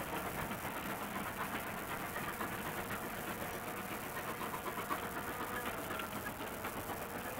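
A narrow-gauge steam train running in the distance, with a steady rumble and the faint clatter of its wheels over rail joints.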